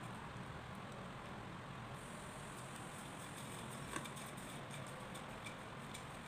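Faint rustling and crunching of coarse dry breadcrumbs as a hand presses and rolls an egg-dipped mashed-potato ball in them, with one short click about four seconds in.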